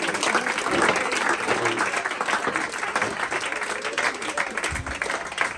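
Audience applauding, many hands clapping at once, easing off slowly, with a few voices heard over it.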